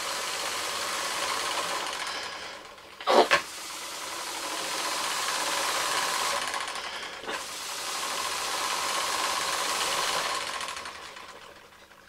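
UGears wooden pneumatic engine kit running on air blown in by mouth: air hisses through it and its wooden mechanism clatters, in three long puffs with short breaks. A short, loud sound comes about three seconds in, between the first and second puffs, and the hiss fades away near the end.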